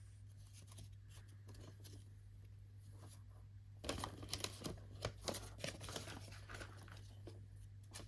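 Packaging being handled: light rustling, then a run of quick crinkles and crackles about four to six seconds in, over a faint steady hum.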